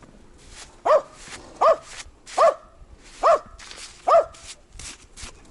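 A dog barking five times in a steady series, one short bark about every 0.8 s.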